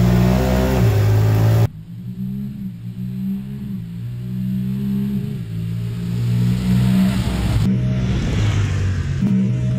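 Honda Pioneer 1000-5 side-by-sides accelerating flat out in a drag race, their engine pitch climbing and stepping back down several times as the transmissions shift. The first moments are loud and close from on board; after about two seconds the engines sound more distant and grow louder as the machines come closer.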